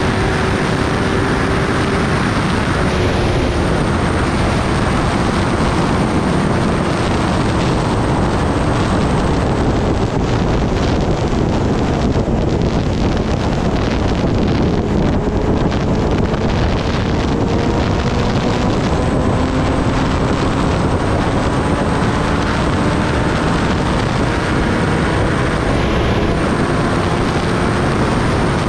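Kawasaki Ninja ZX-10R's inline-four engine cruising at steady highway speed under heavy wind rush on the microphone, the engine note drifting slowly up and down.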